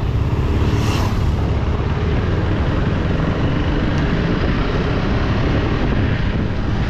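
KTM Duke 250 motorcycle under way at speed: a steady rush of wind on the microphone, with the bike's engine and road noise underneath.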